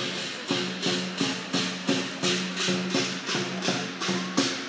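Chinese lion dance percussion (drum, gong and clashing cymbals) beating a steady, even rhythm, with a cymbal crash about three times a second.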